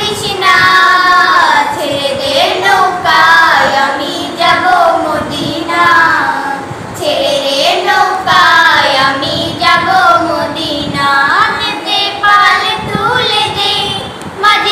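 Young girls singing a Bengali Islamic devotional song together, in continuous melodic phrases.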